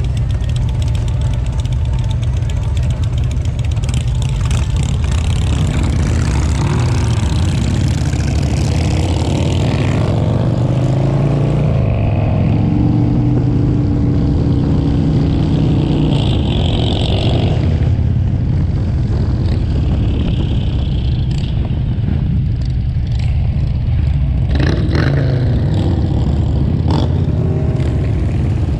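V-twin touring motorcycle engines idling together, then pulling away, their pitch rising as they accelerate, before settling into a steady run at riding speed.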